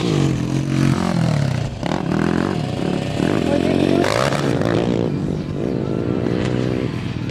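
Dirt bike engine revving hard, its pitch climbing and dropping back again and again as the rider accelerates and shifts up through the gears.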